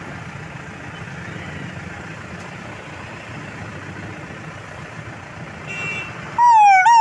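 Steady low hum of idling traffic, then near the end a loud siren-like wail starts, its pitch jumping up and sliding down about twice a second: a man imitating an ambulance siren with his voice.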